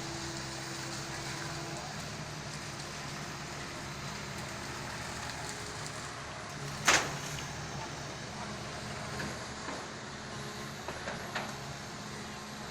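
Komatsu excavator's diesel engine running steadily, with one loud sharp crack about seven seconds in and a few lighter knocks near the end.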